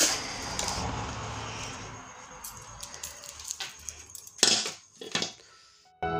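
Pliers prying at a plastic Bluetooth speaker casing. There is a sharp click at the start, then a fading rustle and scattered clicks and knocks of hard plastic and metal being handled, the loudest about four and a half seconds in.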